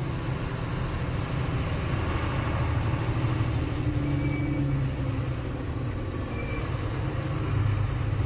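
Truck engine running as the truck creeps in a traffic jam, heard from inside the cab: a steady low rumble with a wash of surrounding traffic noise.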